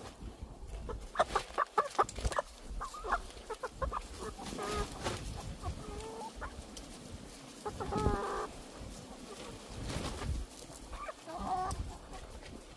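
Chickens clucking: a quick run of short clucks in the first few seconds, more scattered clucks after, and a longer wavering squawk about eight seconds in.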